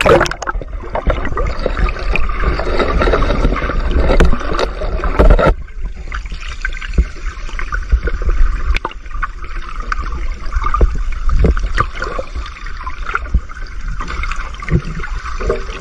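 Muffled water noise picked up by a camera submerged in shallow sea: sloshing and bubbling with a steady low rumble and scattered clicks and knocks. The tone changes abruptly about five and a half seconds in, the lower part dropping away.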